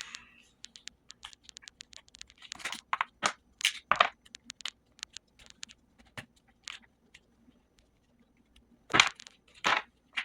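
Skateboard wheels and bearings being handled and pressed on a bearing press: a string of small clicks and ticks with a few short, louder scraping, crunching strokes, the loudest two near the end.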